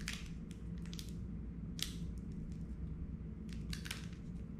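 Foil booster-pack wrapper being handled and torn open: a few short, irregular crinkles and rustles over a faint steady hum.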